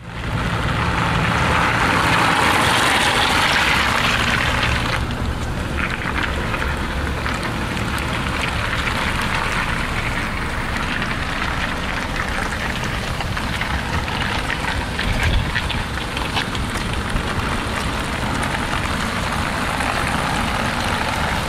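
A Ford Mondeo's engine idling, heard from outside the car, under a steady rushing noise that is louder for about the first five seconds.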